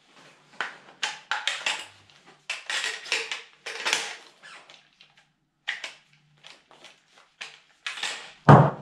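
Short, irregular rustles and clicks of clothing and tactical gear being handled as an airsoft rifle is moved and shouldered, with a louder knock just before the end.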